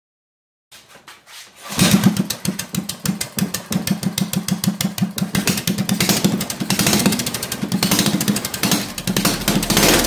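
Small single-cylinder mini-bike engine with a 32mm Mikuni carburetor and an open straight exhaust pipe, catching about two seconds in and then running loudly with rapid firing.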